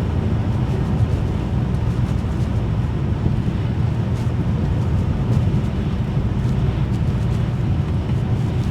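BMW E92 335i's turbocharged straight-six running at a steady cruise along with tyre and road noise, with no revving or gear changes.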